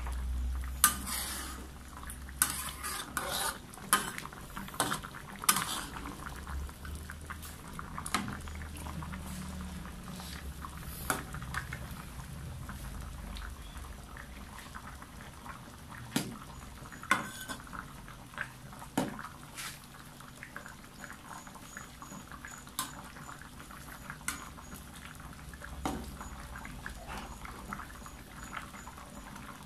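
Metal ladle knocking and scraping against an aluminium wok while stirring chicken curry. The knocks come thick in the first few seconds and only now and then after. The coconut-milk curry bubbles at a simmer underneath.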